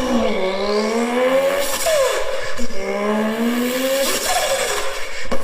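A man's voice imitating a race car engine revving. The pitch climbs steadily and drops sharply, several times over.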